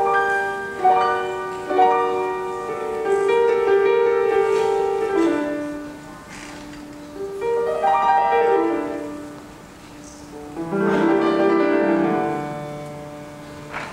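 Piano playing a slow, lyrical passage in phrases of chords and melody notes that swell and then fade, with a lower bass line joining near the end.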